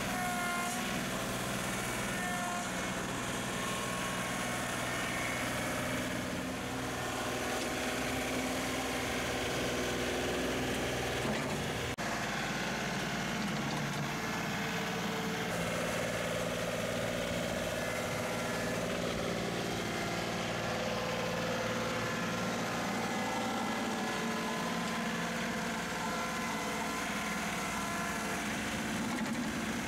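John Deere 2038R compact tractor's three-cylinder diesel engine running steadily during front-loader work. The engine note changes about twelve seconds in.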